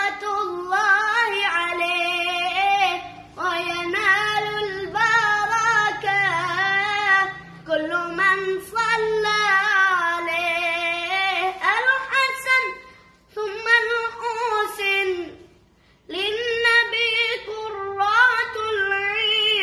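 A young boy singing an Arabic sholawat (a devotional song praising the Prophet) unaccompanied, in long, ornamented phrases with short breaks between them.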